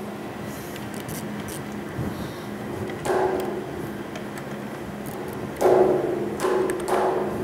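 Hand ratchet with a hex bit clicking in several short runs as flathead screws are driven into a motor mounting plate, over a steady low shop hum.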